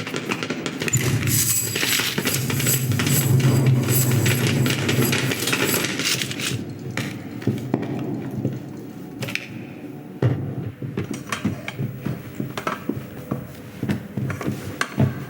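Film sound effects: a busy clatter of small clicks, clinks and knocks over a low rumble in the first half, quieter in the middle, then a sharp hit about ten seconds in followed by scattered knocks.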